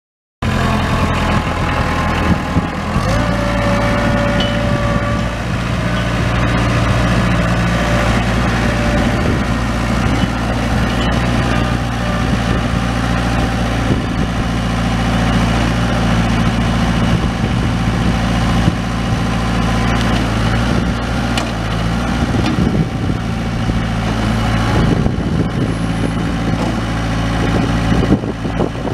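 Kubota B2910 compact tractor's three-cylinder diesel engine running steadily as the tractor moves slowly, cutting in abruptly about half a second in.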